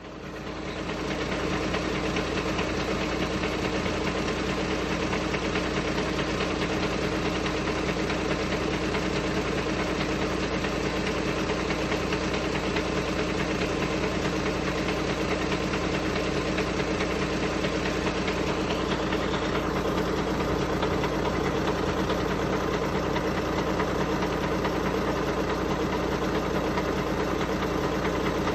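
Volkswagen Passat B7 engine idling steadily from a cold start, carrying the abnormal noise its owner is asking about.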